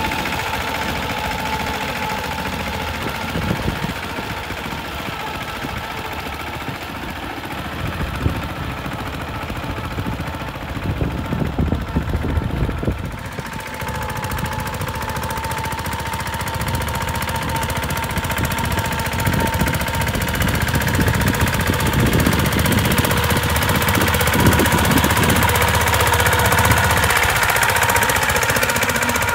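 Mahindra Yuvraj 215 mini tractor's single-cylinder diesel engine chugging under load as it drags its cage wheels through a flooded paddy field, with a steady whine over the engine beat. It gets louder over the last several seconds.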